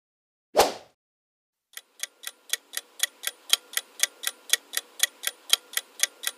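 A short transition sound effect hits about half a second in. Then a countdown timer's ticking sound effect starts, about four even ticks a second.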